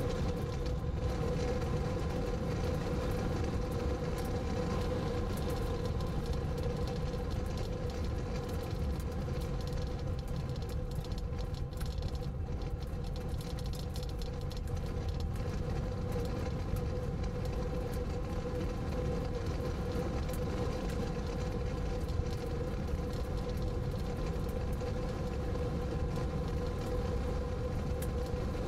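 Car engine and road noise heard from inside the cabin: a steady low rumble with an even hum over it.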